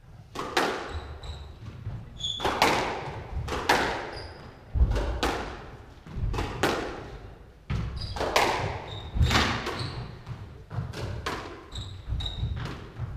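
Squash rally: a quick series of sharp cracks as the rackets strike the ball and the ball hits the walls, about one a second or faster, each ringing briefly in the enclosed court, with short squeaks of shoes on the wooden floor between shots.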